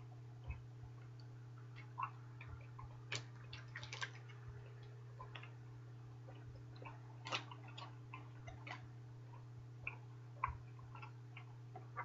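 Faint, irregular wet clicks and smacks of a mouth chewing a large wad of bubble gum, over a steady low hum.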